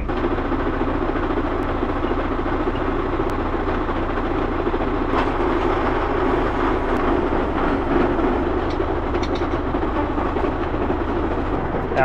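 Steady machinery rumble at a hose-reel irrigator, with a few faint clicks.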